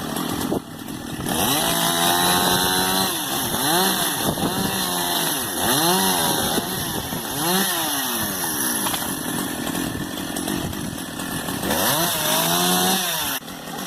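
Chainsaw cutting tree limbs, its engine revving up and down over and over as it bites into the wood. The revs drop briefly just after the start and again near the end.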